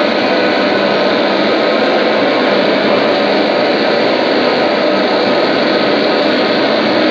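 Loud, steady wall of dense noise from a live experimental music performance with saxophone and electronics, with no distinct notes or beat.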